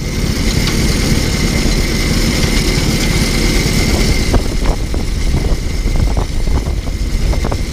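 Allis-Chalmers WD-45 tractor's four-cylinder engine idling steadily while the driver tries to get it into first gear, with a series of short clicks and knocks in the second half.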